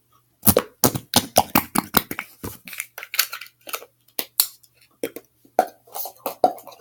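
Small plastic slime tubs and lids being shut and moved about: a rapid, irregular run of clicks and clacks.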